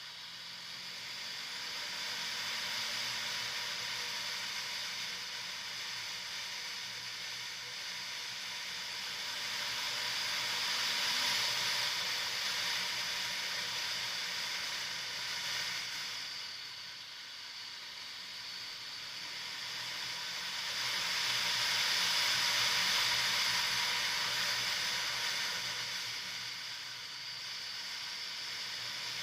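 Kawasaki Versys motorcycle on the move off-road: a rushing hiss of wind and tyre noise that swells and fades twice, over a low, steady engine hum.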